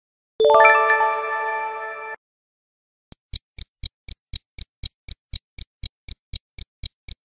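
Quiz-timer sound effect: a bright chime-like ding about half a second in that cuts off abruptly, marking the answer reveal. After a short silence, stopwatch ticking starts about three seconds in, about four ticks a second, and stops near the end.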